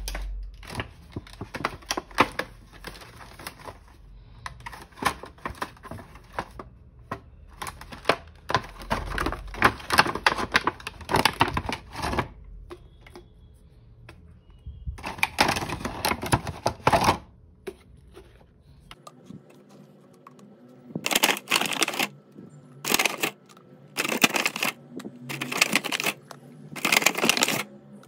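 Handling of a clear plastic bag and small plastic slime tubs: bouts of rapid crinkling and clicking. In the later part, short clattering bursts about once a second as the tubs are set down one by one.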